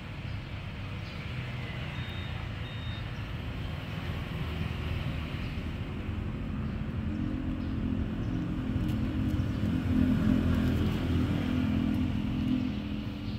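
A motor vehicle's engine running, a steady low rumble that grows louder from about halfway through, is loudest late on, then eases off near the end.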